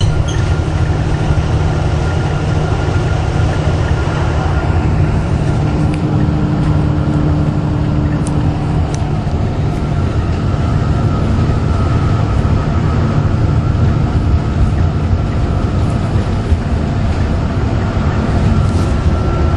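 Steady low rumble of a moving vehicle, with faint steady hums over it and no letting up.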